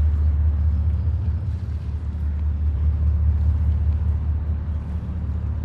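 Steady low rumble of ships' diesel engines running.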